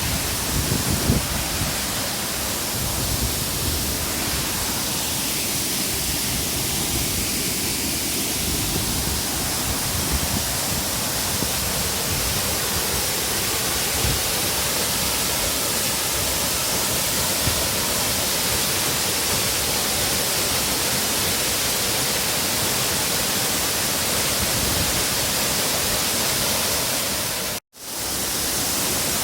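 Waterfall rushing, a loud, steady, even hiss of falling water. It cuts out for an instant near the end.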